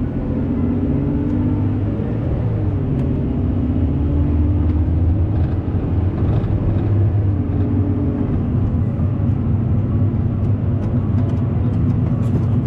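Car engine and road noise heard from inside the moving vehicle: a steady low drone whose pitch rises and falls back twice as the car speeds up.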